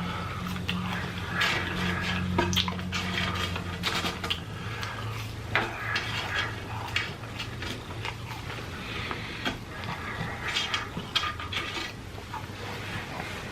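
Close-miked mukbang eating: chewing, with many small clicks and crackles of food and fast-food packaging being handled. A low steady hum runs underneath.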